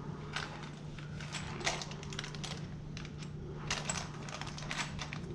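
Light clicks and clinks of small metal hardware being handled, some in quick clusters, over a steady low hum.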